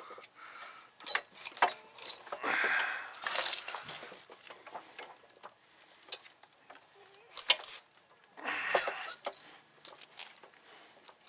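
Metal clinks and jangling from bolts and hand tools being handled against the car's steel subframe and body, with a few sharp ringing taps and some scraping. The sounds come in two clusters, about a second in and again past the middle.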